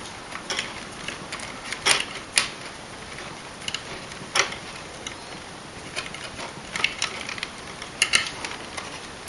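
A plastic wire nut being twisted by hand onto two twisted-together wires: scattered small clicks and scrapes of plastic and wire.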